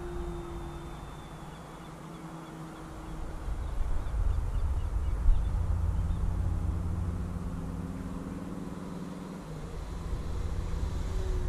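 Electric RC model plane's motor and propeller buzzing as it flies overhead, the pitch drooping as it passes near the start and again near the end. Under it a low rumble on the microphone swells in the middle, with one thump about five seconds in.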